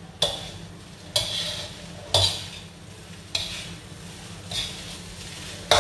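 Metal spatula scraping and tossing fried rice in a steel wok, six strokes about a second apart, with the rice sizzling in between.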